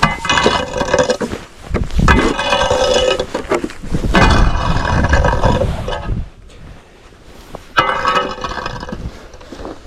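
Snow or ice being scraped off a hard surface with a clearing tool in four long, grating strokes, each with a slight ringing tone in it.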